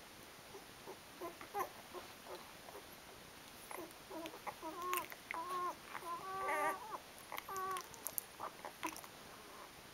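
Twelve-day-old Rhodesian Ridgeback puppy squeaking and whimpering: a string of short, high-pitched squeals from about four seconds in, lasting a few seconds, with a few faint squeaks before.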